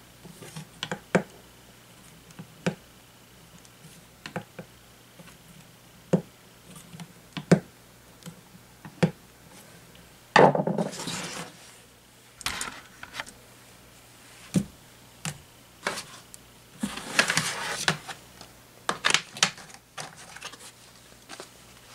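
Irregular clicks and knocks of hard plastic window-fan housing parts and a screwdriver being handled, with a longer scrape about halfway through and another a few seconds later.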